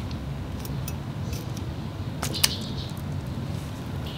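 Steady low background hum with a few faint, short clicks, and one sharper click about two and a half seconds in.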